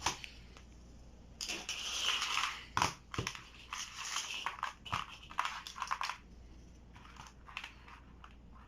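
Crinkling and rustling of handled material, broken by a few sharp clicks, as small craft parts are worked by hand.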